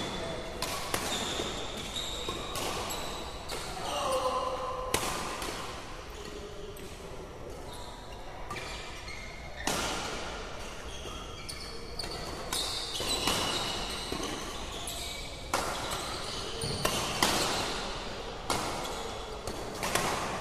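A badminton doubles rally: sharp racket hits on the shuttlecock at irregular intervals, mixed with short squeaks of sports shoes on the court surface, ringing in a large hall.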